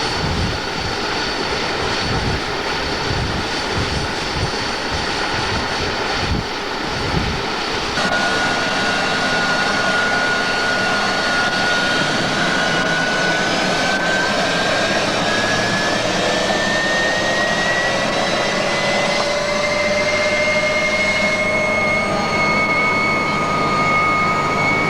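Mi-2 helicopter's twin turboshaft engines and rotor heard from aboard. The first part is rough and gusty with irregular low thumps. From about eight seconds in, a steady turbine whine climbs slowly in pitch over the engine noise, with a lower tone rising alongside it.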